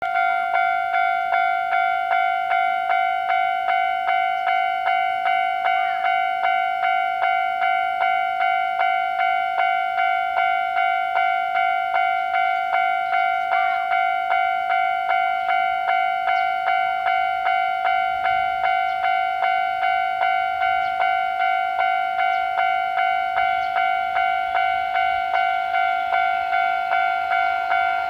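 Japanese level crossing warning bell ringing steadily, about two rings a second. Near the end a train's running noise rises underneath as it approaches the crossing.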